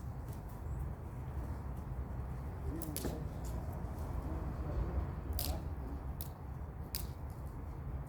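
A few sharp snaps and crunches of brush and branches being worked, over a low steady rumble.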